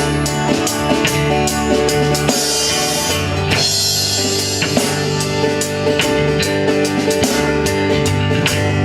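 A band playing with drum kit, bass and guitar over a steady drum beat, with a wash of cymbals a little over two seconds in.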